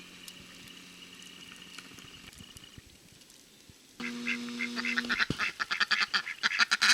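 Ducks quacking in a loud, rapid, overlapping chorus that breaks out suddenly about four seconds in, after a faint steady hum.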